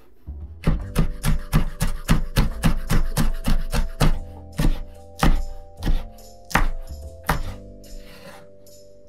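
Kitchen knife slicing green chili peppers on a wooden cutting board: steady knife strikes on the board about three a second, then from about four seconds in slower, uneven chops, with background music.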